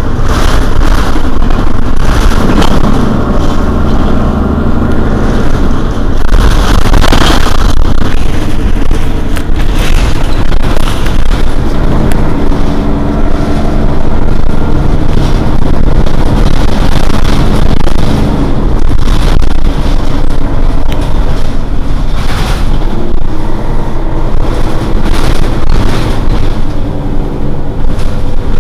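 Mercedes-Benz Citaro city bus's rear-mounted diesel engine idling steadily and loudly as the bus stands at a stop, with a few brief rushes of noise.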